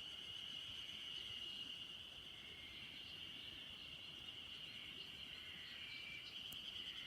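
Insects chorusing in a steady, unbroken high-pitched trill, with a few faint short calls over it.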